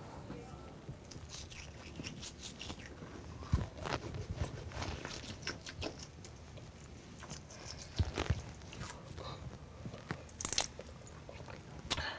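Toothbrush scrubbing teeth: a run of quick, irregular scratchy strokes, with a few louder knocks in between.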